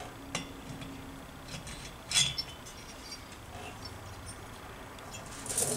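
Light metallic clinks and taps as a finned aluminium Puch high-compression cylinder head is handled and fitted down over the cylinder studs of a Tomos A35 moped engine, with the sharpest clink about two seconds in and a louder scrape near the end.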